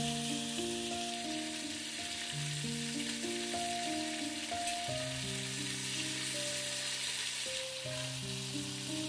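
Minced-meat patties sizzling steadily in hot oil in a cast-iron frying pan, under soft background music of slow held notes.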